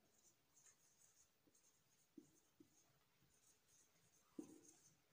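Very faint squeak and scratch of a marker writing on a whiteboard, in short strokes, with a few light taps.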